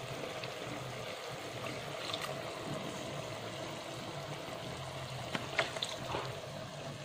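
Tamarind sauce simmering in a wok with a steady bubbling, and a few light clicks of a metal ladle stirring it near the end.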